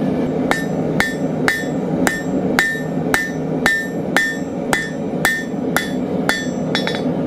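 Blacksmith's hammer striking a half-inch square steel bar on an anvil at an even pace of about two blows a second, each blow with a brief metallic ring. The bar is being drawn out into a smooth taper.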